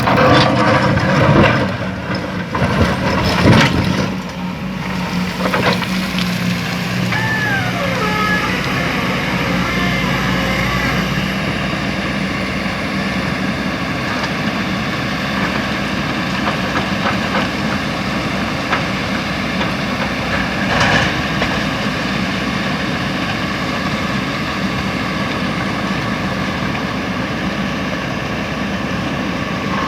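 Diesel engines of heavy equipment (an excavator loading a dump truck) running steadily. Loud clattering knocks come in the first four seconds, and a short falling squeal about seven seconds in.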